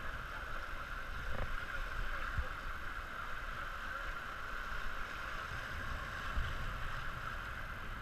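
Steady rush of a shallow river flowing over rocks and riffles around an inflatable raft.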